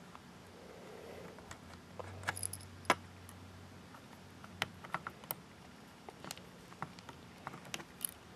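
Small screwdriver driving screws through a metal mounting bracket into a hard drive: scattered light metallic clicks and scrapes, with a sharper click about three seconds in.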